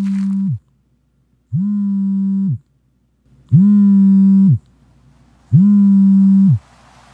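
A low pitched tone, repeated about every two seconds, each about a second long, sliding up as it starts and dropping away as it stops; the last three are louder.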